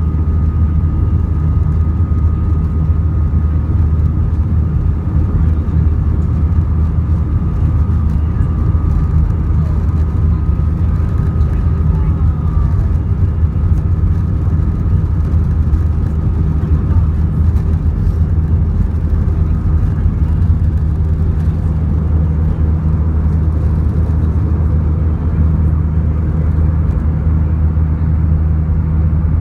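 Jet airliner cabin noise: a steady, loud low rumble of the engines and airflow, with faint steady whines above it.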